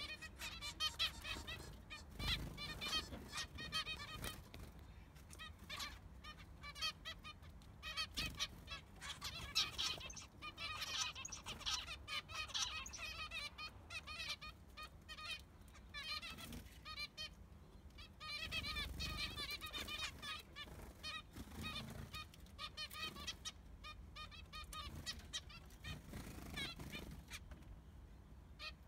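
Zebra finches calling: a busy stream of short, high calls in quick succession, often overlapping, with brief lulls about two-thirds of the way in and near the end.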